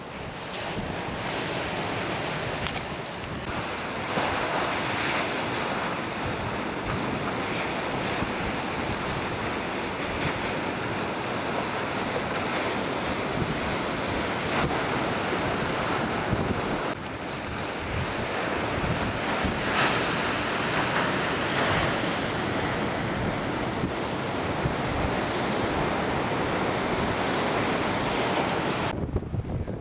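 Ocean surf breaking and rushing, a steady wash of noise with wind buffeting the microphone. The noise changes abruptly a few times where clips are joined.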